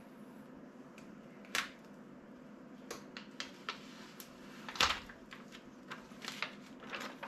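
Cut heat-transfer vinyl and its plastic carrier sheet being handled and peeled by hand: scattered small crinkles, crackles and clicks, the loudest about five seconds in.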